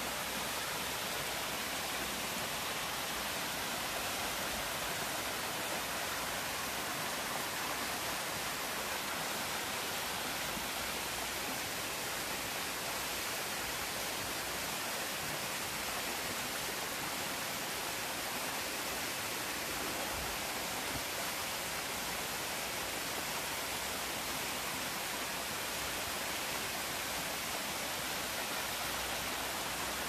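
Thin waterfall cascade splashing down a mossy rock face into a shallow pool: a steady hiss of falling water with no change throughout.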